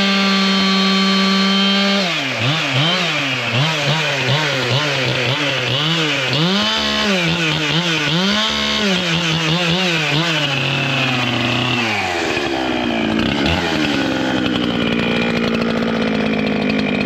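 Two-stroke chainsaw with a 32-inch bar and full-skip chain, at full throttle, then bogging and recovering over and over as it cuts wood. About twelve seconds in the engine drops back toward idle.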